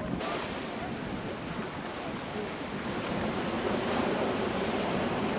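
Ocean surf surging and breaking, a steady rushing with wind buffeting the microphone, a little louder in the second half.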